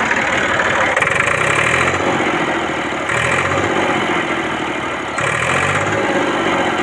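Ursus 3512 tractor's three-cylinder diesel engine running steadily, its sound swelling briefly every couple of seconds and stepping up slightly about five seconds in.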